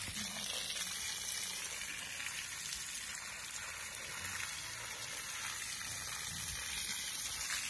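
Water spraying onto the leaves of a young drumstick (moringa) tree: a steady, even hiss.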